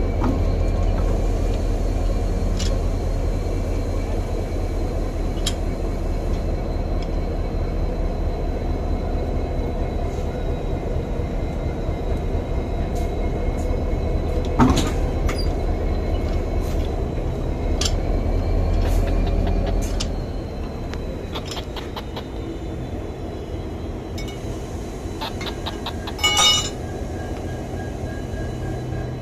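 Steady low rumble of a standing locomotive under a faint steady whine, with scattered metallic clicks from the coupling gear being handled. A sharp metal clank comes about halfway through and another near the end. The rumble eases about two-thirds of the way in.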